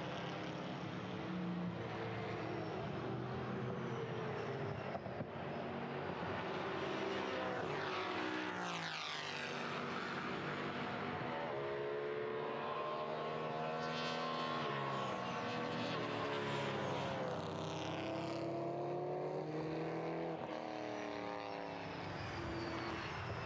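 BMW M3 E92 race cars' V8 engines at full throttle, the pitch climbing through each gear and dropping at every upshift. About nine seconds in, a car passes close with a sharp fall in pitch.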